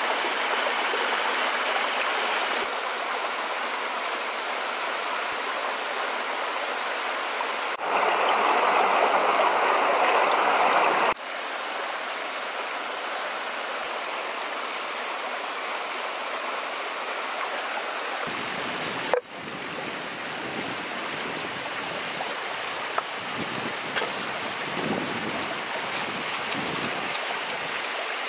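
Shallow stream rushing over rocks, a steady watery rush whose loudness jumps at several cuts, loudest for a few seconds in the middle. Near the end, small clicks and ticks come from salt being handled and poured into a wooden mortar.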